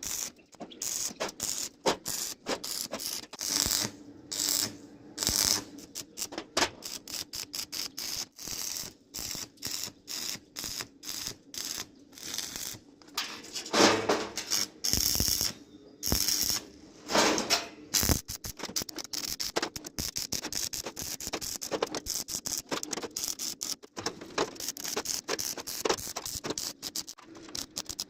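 Steel being arc-welded: a rapid, irregular crackle in short runs of a second or two with brief pauses between them, as in a series of weld beads or tacks.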